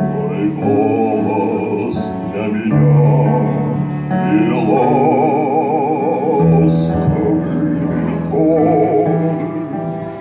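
A man singing in an operatic style with wide vibrato, with cello and other instruments of a small ensemble accompanying him. Two sung "s" sounds hiss briefly, about two seconds in and again near seven seconds.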